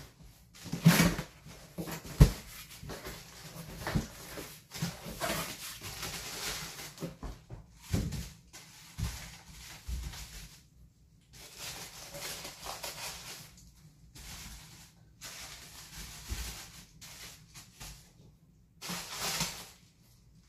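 A cardboard box being opened and plastic-wrapped packs of toilet-paper rolls rustling as they are handled, with a few sharp knocks in the first several seconds.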